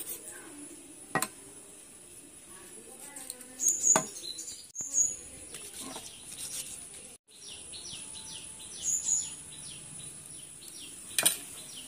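Birds chirping, with a quick run of short falling notes in the second half, over a few sharp knocks and clicks from cleaning sardines with a knife over a steel pan.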